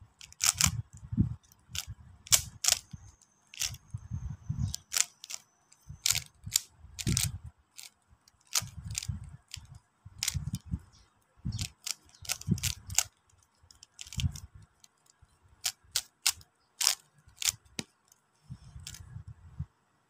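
Rubik's cube being turned quickly by hand: irregular plastic clicks and clacks as the layers turn, with dull low thumps of hands handling it close to the microphone.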